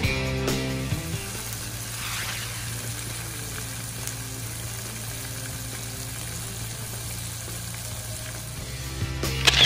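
Flour-coated chicken skin deep-frying in hot oil, a steady sizzle. Background music fades out in the first second, and a brief louder burst comes near the end.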